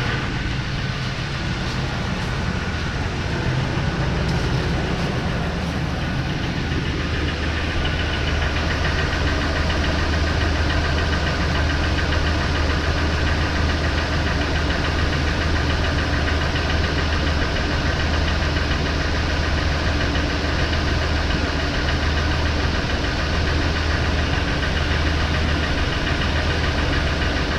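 2004 Ford Expedition's 5.4-litre two-valve V8 running steadily at idle with a knocking noise, which the owner wonders may be piston slap.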